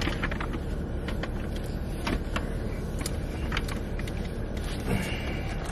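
Steady low hum of a car interior with the engine running, with a few light clicks and knocks over it.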